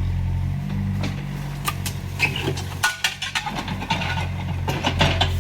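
Mini excavator's engine running, its hum dropping away about half a second in. Then comes a run of sharp clanks and scraping as the steel bucket digs through soil and old foundation rubble, and the engine hum comes back strongly near the end.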